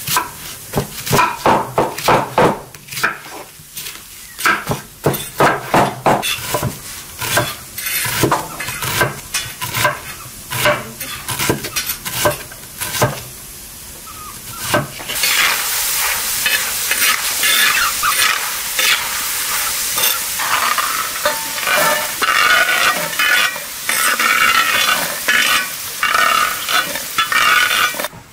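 A large knife chopping a peeled onion on a wooden cutting board, a run of sharp, irregular strikes. About halfway through, this gives way to a steady sizzle of diced food frying on a hot iron pan.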